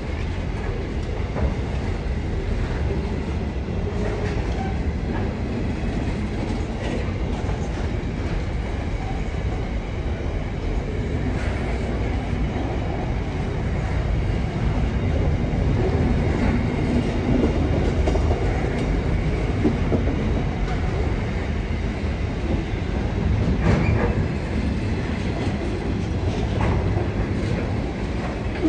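Loaded container flat wagons of a long freight train rolling past: a steady rumble of steel wheels on the rails, with a few sharp clicks along the way.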